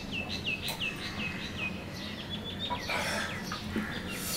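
A bird calling: a quick run of about eight short chirps, each sliding downward, in the first two seconds, then a second, shorter phrase of higher notes.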